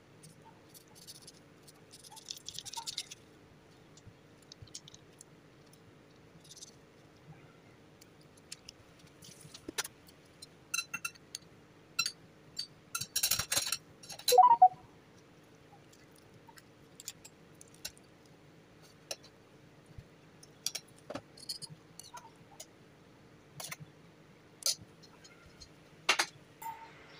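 Kitchen handling sounds: a knife cutting and scraping ripe mango, with scattered small clicks and taps of utensils and dishes. About halfway through comes a short scrape and the loudest sound, a ringing clink of a metal spoon against a ceramic plate.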